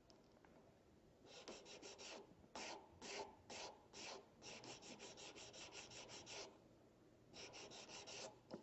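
Blue hand sanding file rubbed back and forth over the nose area of an acetate eyeglass frame, shaping the bridge by hand. Faint, quick rasping strokes in runs of about five a second, with a few slower, longer strokes between them and a short pause before a last run near the end.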